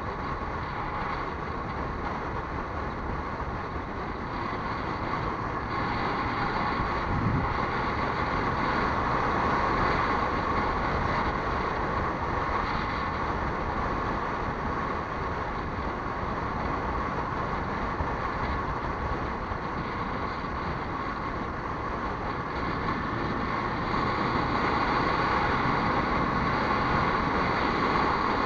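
Steady running noise of a moving road vehicle, engine and road noise blended with wind rush, swelling slightly in level twice.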